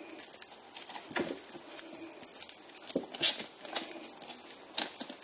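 Norwegian Forest Cat kittens playing on a laminate floor: irregular pattering and soft thumps of paws as they scamper and swat, over a constant high-pitched whine.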